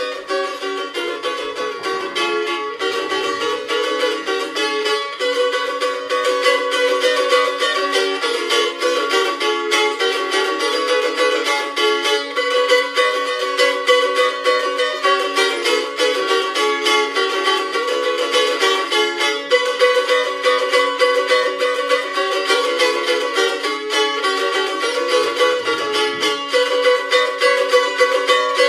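Tamburicas playing an instrumental folk melody in rapid, densely repeated plucked notes, with no bass beneath.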